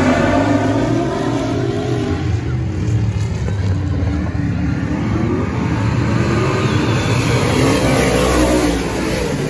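Dirt-track race cars running a heat race, their engines revving with the pitch sweeping down and then climbing again as the cars go by and accelerate.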